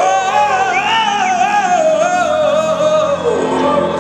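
Male tenor belting a long held note with vibrato, backed by piano, bass and drums; the note drops lower a little after three seconds in.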